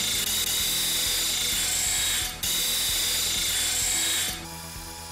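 Disc sander grinding the notched end of an aluminum tube, a steady high hiss. It breaks off once for a moment about two seconds in as the tube is lifted, then stops shortly before the end.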